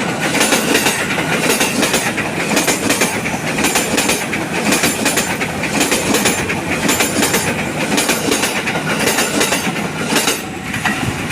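KRL electric commuter train passing close by, its wheels clacking over the rail joints in pairs about every two seconds as each bogie goes over, under a steady rumble.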